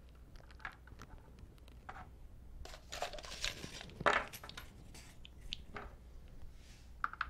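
A small plastic hardware bag rustling and crinkling as it is handled, loudest around the middle. Scattered light clicks and taps of small plastic and metal kit parts on the workbench come before and after.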